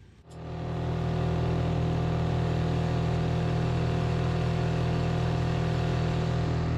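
Small gasoline outboard motor running at a steady pitch. It comes up to full level within the first second and holds even from then on.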